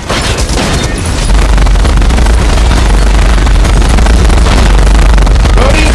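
Dense, loud action-soundtrack barrage of gunfire and explosions with heavy bass, cutting off suddenly at the end.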